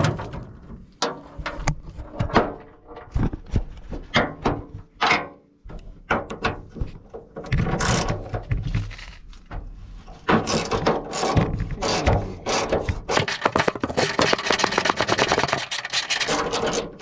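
Metal knocks and clatter from tools working a worn tailgate latch out of a 1978 Datsun 620 tailgate, ending in a long run of fast clicking near the end.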